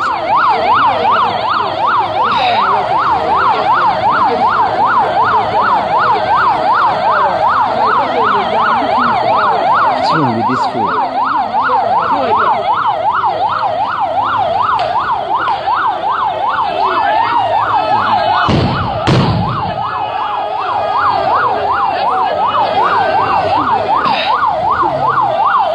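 Vehicle siren in a fast yelp, sweeping rapidly up and down about three times a second without pause. A single thump breaks in about three-quarters of the way through.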